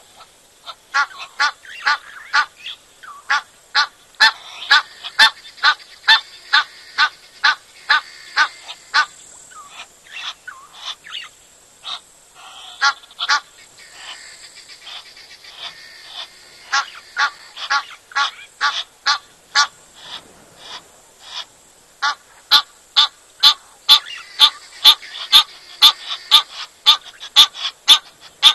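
Leopard lapping water: a quick regular series of short wet laps, about two or three a second, broken by a few short pauses.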